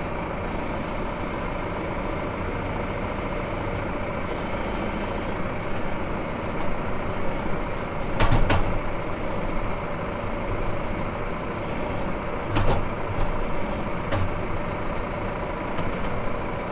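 Tractor engine running steadily, heard from inside the cab, while the front loader tips muck into a trailer; two sharp clunks from the loader stand out, about halfway through and again some four seconds later.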